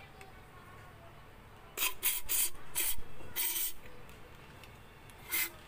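Aerosol cleaner sprayed through a straw nozzle into a plastic brake fluid reservoir to flush out the dirt: a quick run of five short hissing bursts about two seconds in, then one more short burst near the end.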